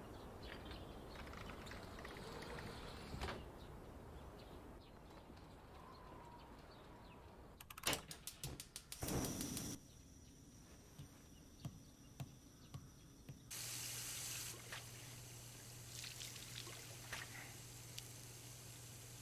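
Quiet household sound effects: water pouring or trickling, a quick run of sharp clicks about eight seconds in, then a low steady hum.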